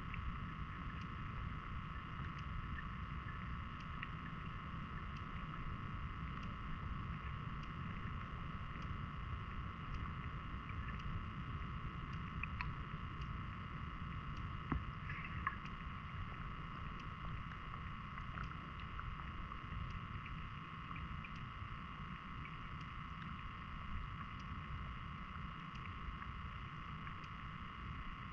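Underwater river ambience picked up by a submerged GoPro Hero 10: a steady, muffled low rumble with a constant high hum over it, and a few faint clicks about halfway through.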